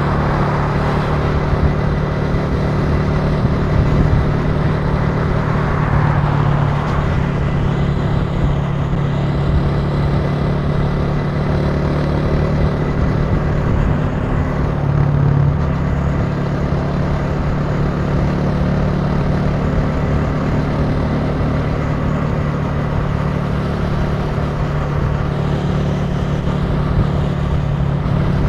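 Italika TC300 motorcycle engine running steadily while riding, with road noise, a slight swell in engine sound a few times.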